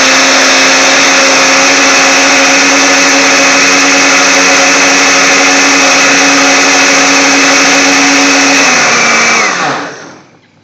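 Countertop blender motor running at a steady high speed, churning yogurt and sliced mango. Near the end it is switched off and the motor winds down, its pitch falling, to a stop.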